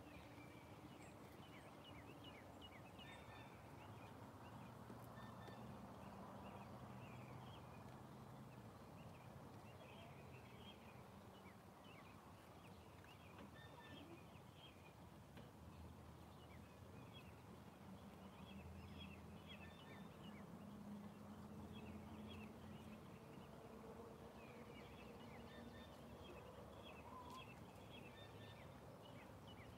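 Faint farmyard ambience of a flock of hens clucking softly while they forage, with many short, high chirps throughout.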